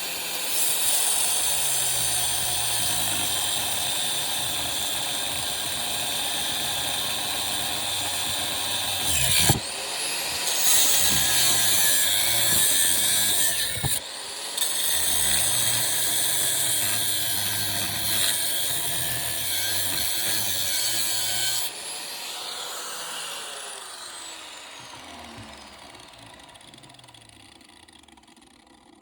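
Angle grinder cutting into metal on a window air-conditioner unit, with two short breaks in the cut. About three-quarters of the way through it is switched off and coasts to a stop, its whine falling in pitch as it fades.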